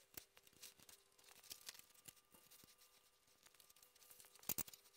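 Near silence: faint scattered ticks and rustles of handling, with a couple of sharper clicks about four and a half seconds in.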